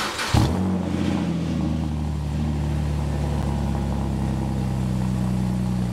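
BMW E91 328i's N52 inline-six engine idling steadily. It comes in with a short burst about half a second in, and its revs dip slightly before settling.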